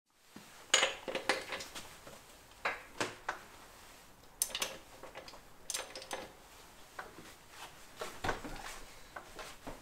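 Hand wrench clinking and clanking on a dirt bike's rear axle nut, in irregular sharp metal clicks and knocks, as a stuck nut that won't come off with a hand wrench is worked on.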